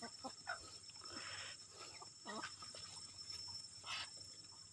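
Chickens clucking faintly while they forage, a few short scattered calls, over a steady high hiss.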